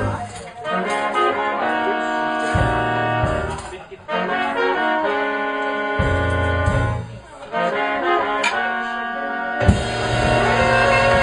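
Live jazz band with a trumpet playing long held notes in phrases that break off every few seconds, over lower notes from the rest of the band.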